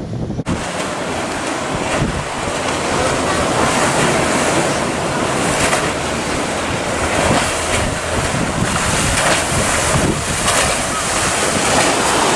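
Heavy ocean surf breaking and rushing, with strong wind buffeting the microphone. It cuts in abruptly about half a second in.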